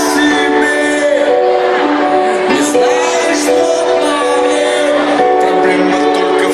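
Loud pop dance music with a singing voice, played over a sound system.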